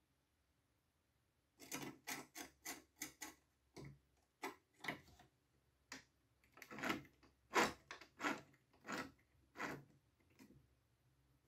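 Plastic gears of a toy sewing machine's drive mechanism turned by hand, giving a run of sharp clicks: a quick burst of about six, then slower, uneven clicks.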